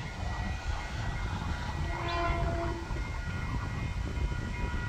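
Horn of an approaching XPT sounding briefly about two seconds in, over a steady low rumble.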